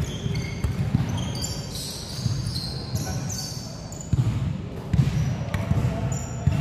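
Basketball game on an indoor court: a ball bouncing on the floor with thuds of footsteps, and sneakers squeaking in many short high chirps as players move.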